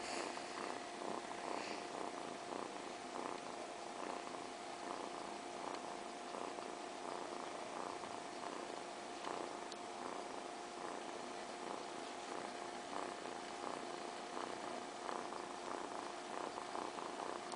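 A kitten purring steadily, in a continuous run of rhythmic pulses.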